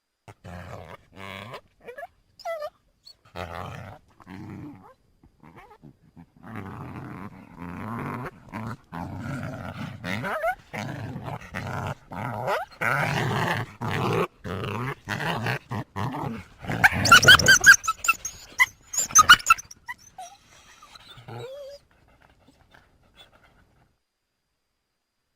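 Coyote growling and snarling: short broken calls at first, building into almost continuous growling, then a burst of loud, high-pitched yelps about two-thirds of the way through before the calls stop.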